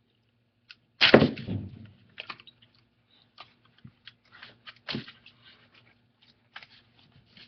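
Handling noise from taking apart a Google Nexus 7 tablet: a louder knock about a second in, then scattered sharp clicks and taps as a pry tool and fingers work at the tablet's frame.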